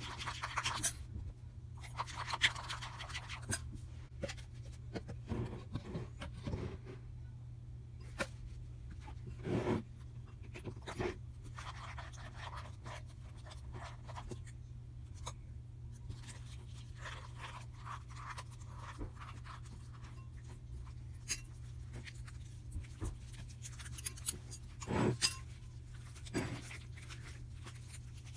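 Slime being stirred and kneaded by hand in a bowl: scattered scraping and sticky clicking noises, with a few louder brief squishes, over a steady low hum.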